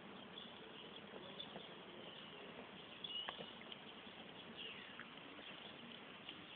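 Faint, light crackling of a small burning cardboard box, with a brief high chirp a little over three seconds in.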